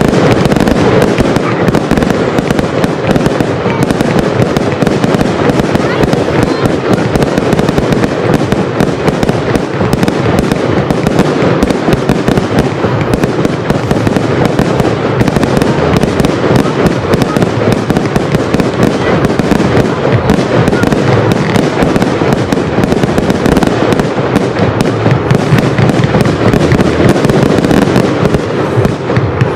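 Fireworks display in full barrage: a dense, unbroken run of launches, bangs and crackle from aerial shells and rising comets, with no pause.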